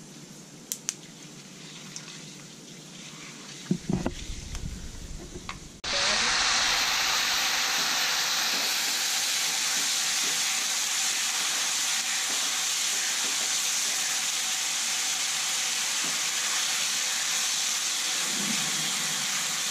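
Chopped onion tipped into hot tempering oil in a kadhai and frying: a loud, steady sizzle starts suddenly about six seconds in and keeps on while a wooden spoon stirs it. Before that there are only a few faint clicks and a soft thump.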